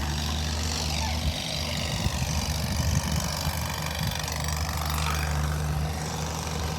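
Skid steer's diesel engine running steadily at a low hum, with a rougher, uneven rumble for a few seconds in the middle.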